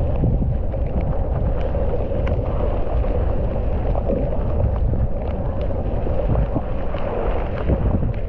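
Wind buffeting an action camera's microphone over the rumble of a mountain bike riding a dry dirt trail, with scattered clicks and rattles from the bike.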